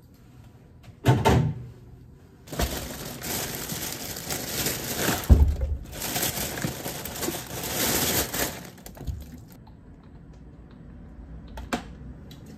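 Plastic shopping bag rustling and crinkling as groceries are taken out, with knocks of bottles being set down, one about a second in and a heavier thud about five seconds in. The crinkling is loudest for several seconds in the middle, then gives way to quieter handling.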